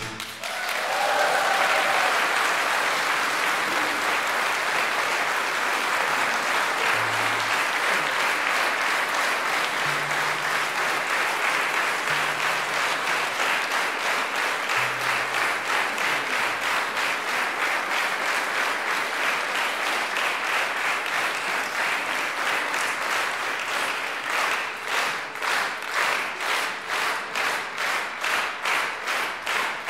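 A concert hall audience applauding just as the orchestra's final chord dies away. From about 24 seconds in, the clapping falls into unison rhythmic clapping at about two claps a second.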